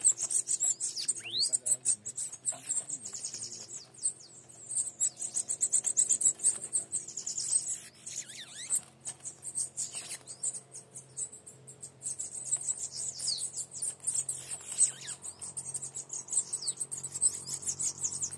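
Small songbirds twittering and trilling continuously, very high-pitched and rapid, with short sliding whistled calls mixed in.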